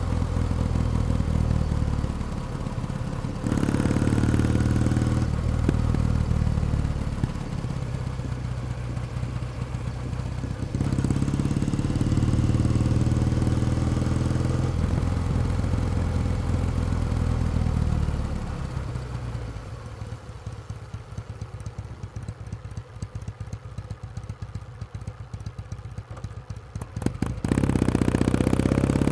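Kawasaki W1 Special vertical-twin motorcycle being ridden, the engine pulling hard, easing off with falling pitch and pulling again. Past the middle the throttle is closed and the engine runs quietly with rapid light clicks from the exhaust for several seconds. Near the end it opens up again with rising pitch.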